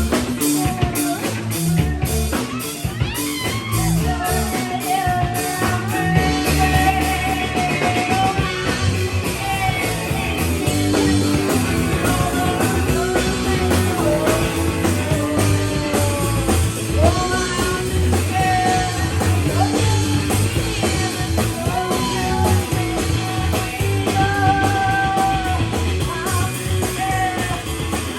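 Live rock band playing a song: electric guitar, bass and drum kit, with a wavering melody line carried over the top.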